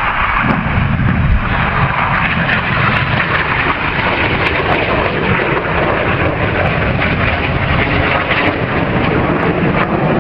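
Jet engine noise from Red Arrows BAE Hawk T1 jets flying past: a loud, steady, rushing noise.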